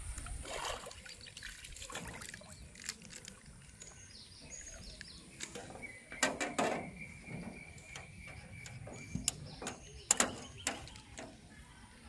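Small splashes and a few sharp knocks as a hooked fish is pulled from the water and handled on its line. A steady high tone sounds for about three seconds midway.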